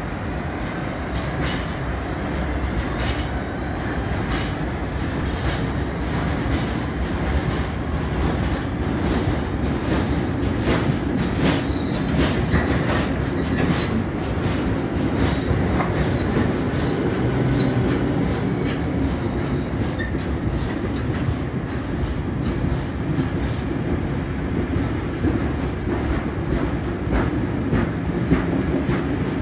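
Freight train hauled by an SBB Re 6/6 electric locomotive pulling out of the station: its wagons roll past with a steady low rumble and repeated clicks as the wheels run over the track, with a few faint brief squeals partway through.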